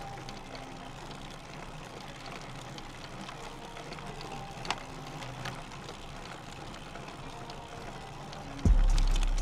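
Soft intro music of quiet held notes at shifting pitches. Near the end much louder music cuts in with a deep bass.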